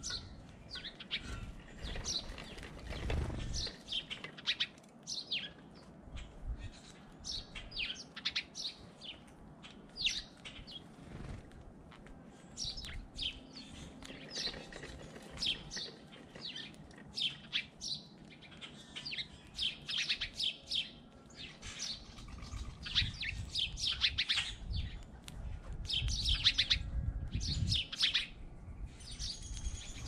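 Small songbirds chirping at a feeder: many short, high chirps in quick runs throughout, with a low rumble building over the last several seconds.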